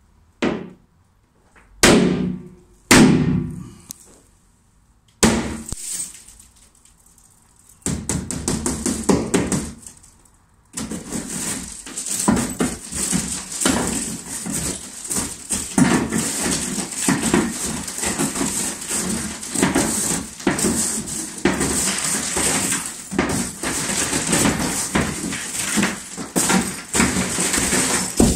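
Hammer striking a large toughened glass pane: three sharp blows that ring and die away in the first few seconds. Then, once the pane has shattered into small crazed fragments, a dense, continuous crackling and tinkling of glass as it is tapped and crumbles away, building from about eight seconds in.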